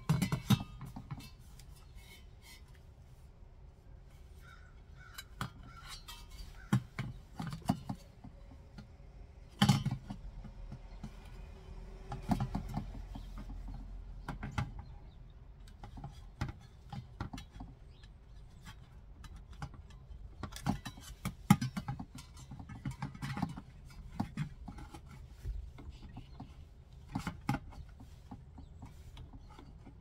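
Handling noise from a camping sink being assembled: scattered clicks, knocks and rubbing of plastic and metal parts as the basin lid, faucet and perforated stainless utensil holder are moved and fitted. A few seconds of steadier hum sit around the middle.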